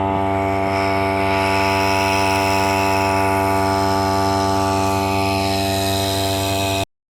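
Small boat motor running at a steady speed, with a constant even hum, cutting off suddenly just before the end.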